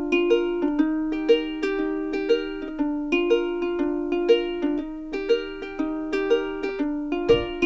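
Background instrumental music: a bright plucked-string melody over a steady beat, with low bass notes coming in near the end.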